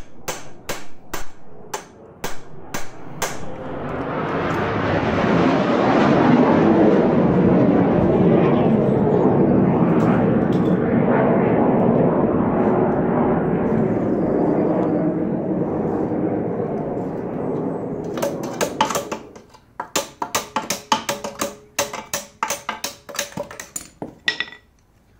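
Quick hammer blows on steel as a bolt is driven out of a rusty suspension crossmember. Then a loud rushing roar builds up, holds for over ten seconds and fades away, and the rapid hammering resumes near the end.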